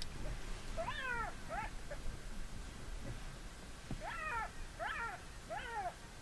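Black-backed jackal giving repeated high yelping calls, each rising briefly and then falling in pitch: two about a second in, then three in quick succession near the end. These are alarm calls of a jackal harassing a leopard.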